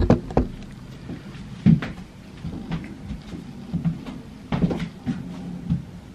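Scattered knocks and clunks of someone moving about a bedroom and handling a wardrobe or door while taking down a garment from its hanger. The sharpest knocks come right at the start, at about 1.7 seconds and at about 4.6 seconds.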